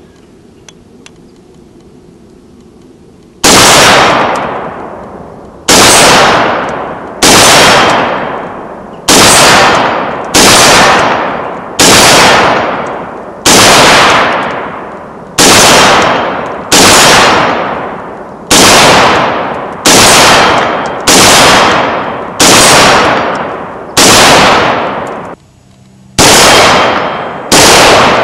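IMI Tavor TAR-21 bullpup carbine in 5.56 NATO firing aimed single shots at a steady pace, each about a second or a second and a half apart, with a ringing tail after each. The string starts about three seconds in, pauses briefly near the end, then picks up again, with steel-target hits ringing among the shots. Roughly eighteen shots in all.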